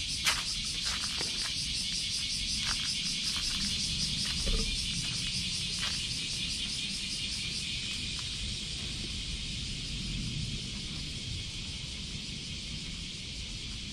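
A steady, high, rapidly pulsing chorus of insects. Several sharp clicks and taps sound in the first six seconds, the loudest just after the start.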